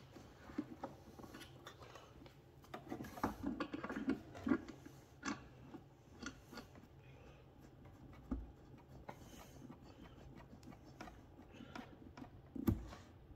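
Faint handling noises: small clicks and scrapes as a vacuum hose's fitting is threaded onto the port of a vacuum pump, with a couple of soft thumps, one about eight seconds in and one near the end.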